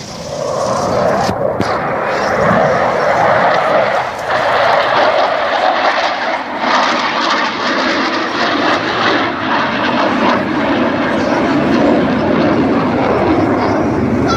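Military jet aircraft flying over an air show, its jet engine noise rising in the first second and then holding as a loud, steady roar.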